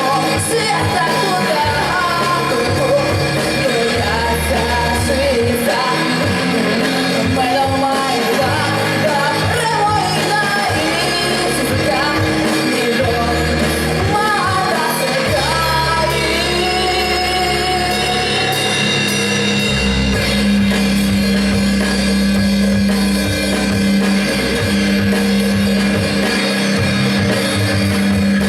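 Rock song with a sung lead vocal over a band backing of guitars and drums; the vocal melody is most prominent in the first half or so.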